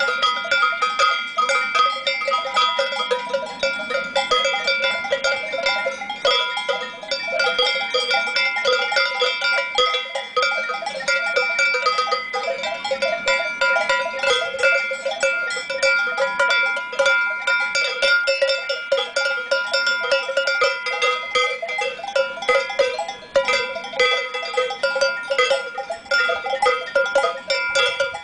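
Cowbells worn by grazing cattle, clanking and ringing without a break as the animals move their heads to graze. Several bells of different pitches ring over one another.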